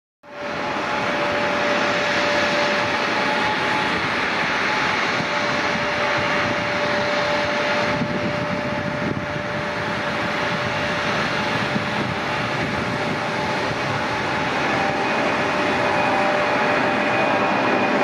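Boeing 767-200 freighter's twin turbofan engines at takeoff power: a loud, steady jet roar with a few steady whining tones through it, growing a little louder near the end as the aircraft climbs out.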